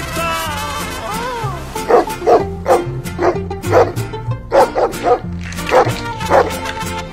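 A dog barking repeatedly, about ten short barks a third to half a second apart, over background music.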